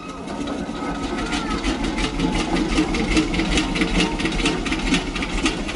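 A small machine running with a fast, even clatter of several ticks a second over a low hum.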